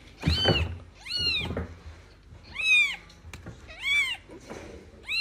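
Newborn kitten mewing: four high-pitched mews about a second apart, each rising then falling in pitch, with another starting at the end.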